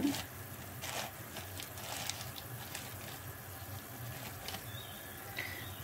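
Butter-and-sugar syrup boiling hard in a stainless steel saucepan: a faint steady bubbling hiss with a few small pops.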